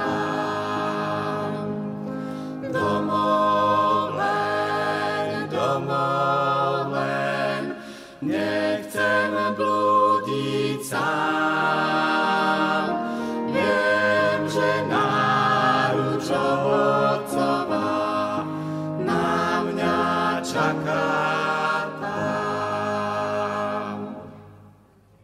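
Mixed vocal quartet, two men and two women, singing a hymn in harmony with upright piano accompaniment; the song ends and dies away near the end.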